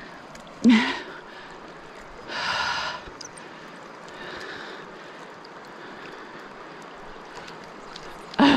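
A woman's short vocal noises of effort, one about a second in and one near the end, with a breathy burst between them, over the steady rush of river rapids.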